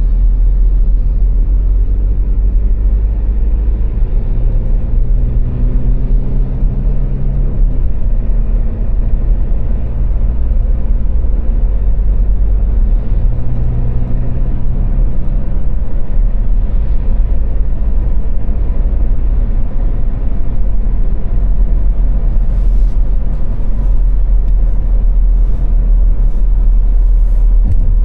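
A car driving on a motorway: a loud, steady low road rumble, with the engine note rising in pitch twice as the car speeds up.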